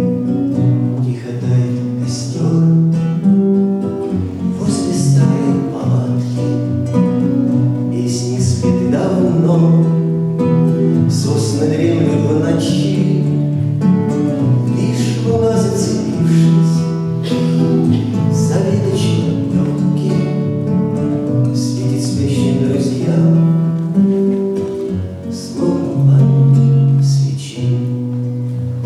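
Acoustic guitar strummed through the closing bars of a bard song, with no words sung.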